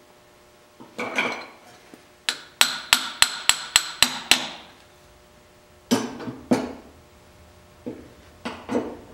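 Small hammer tapping a steel pin into place inside a Monarch 12CK lathe's cast-iron headstock gearbox: one knock, then a quick run of about eight sharp metallic taps at roughly four a second, then a few scattered knocks.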